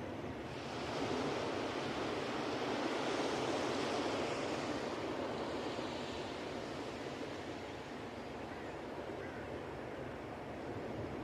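Ocean waves breaking and washing up a beach: a rushing surge swells about a second in and slowly eases away over the next several seconds.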